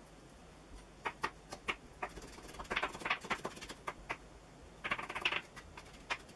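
Kitchen knife chopping garlic cloves on a plastic chopping board: a run of irregular sharp taps, with a couple of quicker bursts of chopping.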